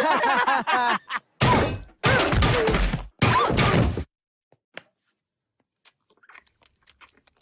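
Three heavy slams of a head being smashed down onto a cafeteria table, about a second apart, starting about a second and a half in. After them come only a few faint wet ticks.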